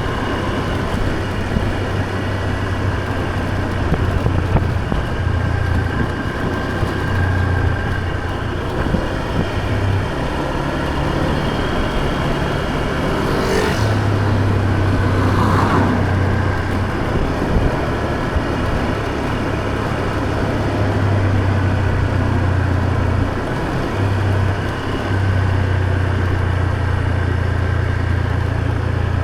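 Motor scooter running as it is ridden: a steady low engine hum that dips briefly now and then, under wind and road noise.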